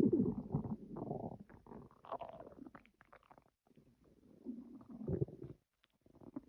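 Stomach growling: irregular gurgling rumbles that come and go, the loudest right at the start, with more gurgles about two seconds in and again about five seconds in.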